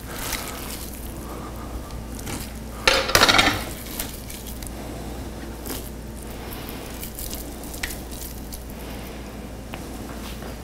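Raw ground meat being put into a stainless steel mixing bowl of wet ingredients: soft handling and squishing noises with one louder burst about three seconds in.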